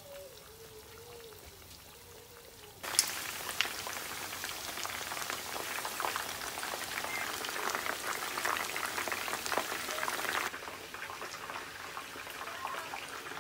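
Battered chicken pieces deep-frying in hot oil in a frying pan: a dense crackling sizzle that starts suddenly about three seconds in and cuts off about ten and a half seconds in.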